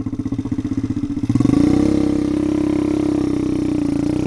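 Kayo pit bike's engine running at low revs with an uneven beat, then opening up about a second in and pulling at a steady, higher note. The exhaust is apparently a straight-through pipe.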